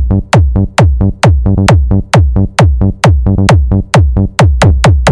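Loud electronic dance remix: rapid kick drums, each hit dropping sharply in pitch, over a deep steady bass line.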